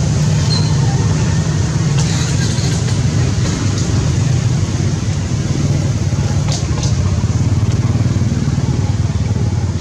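A steady low rumble like a motor running, with a few brief high squeaks about half a second in and again around six and a half seconds.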